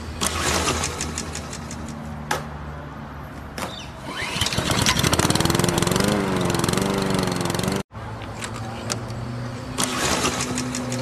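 Small lawn mower engine being pull-started: a quick run of rattling pulls, then the engine catches and runs loudly with a wavering pitch. It cuts off abruptly about eight seconds in, and the idle and pull-start begin again.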